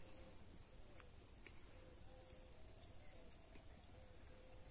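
Quiet outdoor ambience, near silence: a steady faint high-pitched whine and a few soft clicks of leaves being picked by hand.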